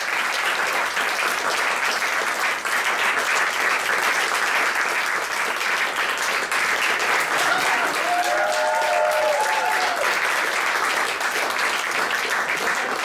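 Theatre audience and cast applauding steadily, a dense unbroken clapping, with a voice briefly calling out over it about eight seconds in.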